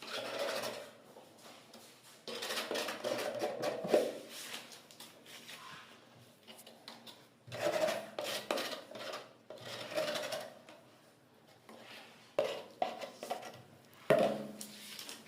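Metal parts of a built-in gas hob clattering and scraping as they are handled, in several separate bursts with short pauses between them.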